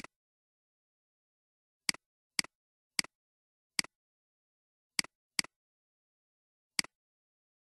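Computer mouse clicks, seven in all at uneven intervals, each a quick press-and-release pair.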